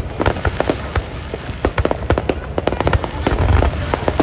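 Fireworks display: rapid, irregular bangs and crackles of bursting shells, with a deeper, louder boom about three and a half seconds in.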